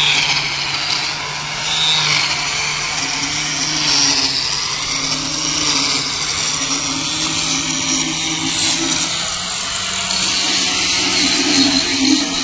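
Handheld angle grinder running steadily while being worked along the edge of a granite countertop slab.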